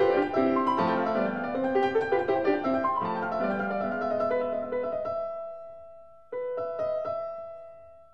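Piano music: a flowing run of notes that thins out and fades about five seconds in, then a held chord that starts abruptly and dies away.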